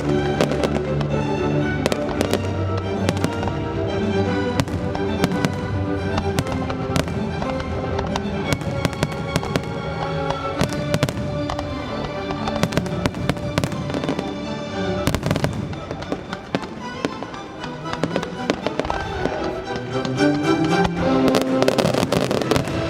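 Pyromusical fireworks display: a music soundtrack of sustained notes plays under a steady stream of sharp firework bangs and crackles, which grow denser near the end.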